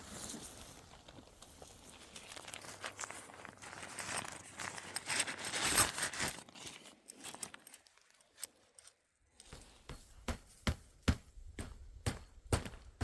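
Camping gear being unpacked and handled: crinkling and rustling of plastic wrapping and fabric for several seconds. About ten seconds in, a string of sharp separate knocks begins.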